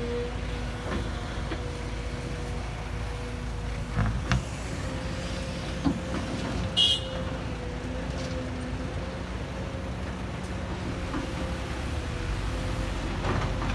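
Kobelco SK200 hydraulic excavator's diesel engine running steadily under load with a steady whine while it works, loading soil into a dump truck. A few short knocks come about four and six seconds in, and a brief high-pitched squeak or toot near seven seconds.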